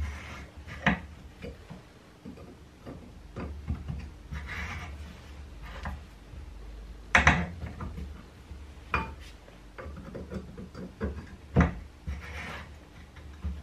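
Hand tools working on a steel pit-bike shock absorber body while its end cap is being worked loose with a homemade T-handle tool: scattered sharp metallic clicks and knocks, the loudest about seven seconds in, with short scraping sounds between them.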